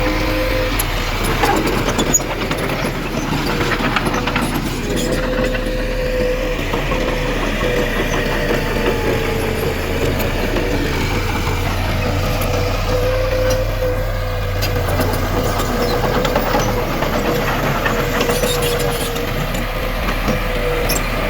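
Diesel engine of heavy earthmoving machinery running steadily, with a wavering whine and scattered metallic clicks.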